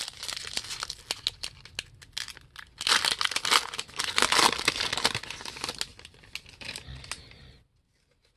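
Foil wrapper of a trading-card pack crinkling and tearing as it is opened, then the cards rustling in the hand, with many small sharp clicks. It is loudest about three to five seconds in and stops shortly before the end.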